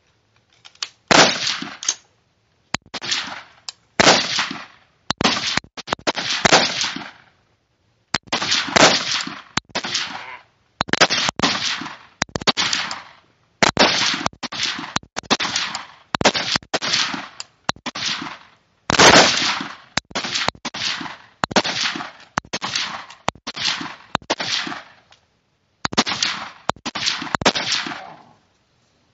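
Rifle gunfire from several shooters on a firing line during a timed rapid-fire string. Sharp reports come in irregular clusters, often overlapping, each ringing out briefly.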